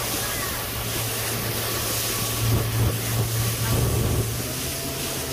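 The engine of a 20-foot Angler motorboat running steadily under way, a constant low hum, with wind and water rushing past the hull.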